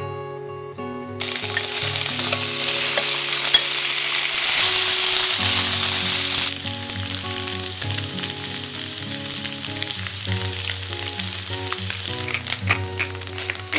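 Tofu cubes frying in hot olive oil in a steel pan. A loud sizzle breaks out suddenly about a second in and drops lower about halfway through. It then goes on with small spits and crackles as the cubes are turned with a metal spoon.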